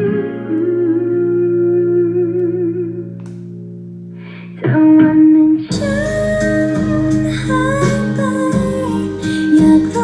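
A song with guitar and singing played through a Sound BlasterX Katana soundbar. For the first half it sounds muffled with the treble missing, then a little past halfway the full bright sound suddenly comes in.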